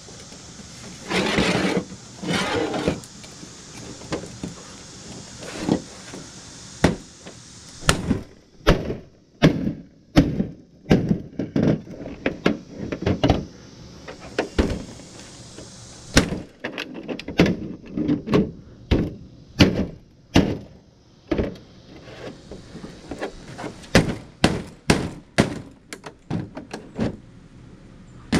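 Hatchet striking the plastic back cover of a flat-screen TV to break it open: a long series of sharp knocks, some single and some in quick runs, with two longer, louder noisy bursts near the start.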